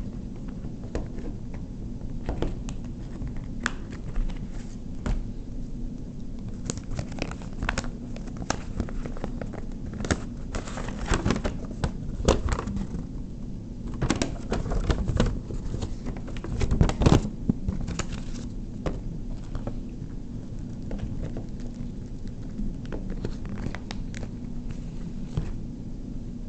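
Scattered clicks and crinkling from small objects and packaging being handled, thickest in the middle stretch, over a steady low hum.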